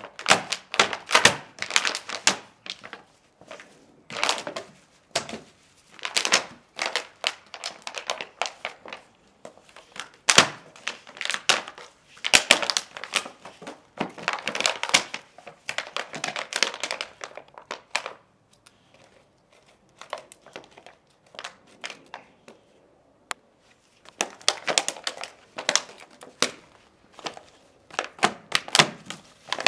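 Empty plastic drink bottle crackling, crunching and thunking in bursts as an American Bulldog puppy bites and paws at it, with a quieter lull of several seconds past the middle.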